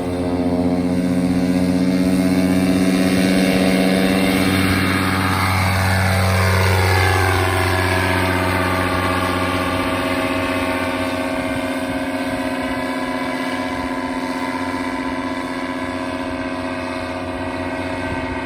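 Polini Thor two-stroke paramotor engine running hard at high revs. Its pitch shifts about five seconds in, then it holds steady again.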